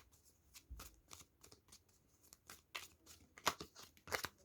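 A tarot deck being shuffled by hand: a run of soft, irregular card flicks and rustles, a few of them louder near the end.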